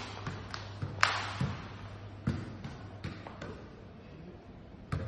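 A football being struck and bouncing on a hard floor, making a string of irregular thuds that echo round a large hall; the sharpest comes about a second in.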